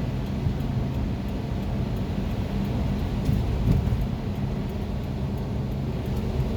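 A car's engine running with a steady low rumble, heard from inside the cabin.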